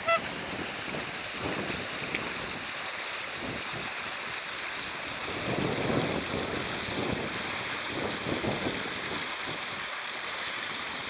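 Steady rush of water spilling from a concrete sluice outlet into a canal, with a single light click about two seconds in.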